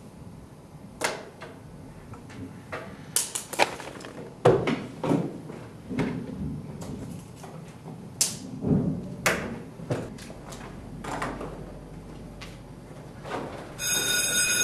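Irregular knocks and taps on classroom desks, from books, binders and hands being moved about. Near the end a loud steady electric ringing tone starts.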